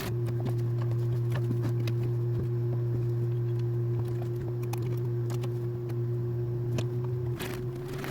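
Sewing machine stitching fabric: a steady motor hum with a run of needle clicks. The hum dips briefly near the end.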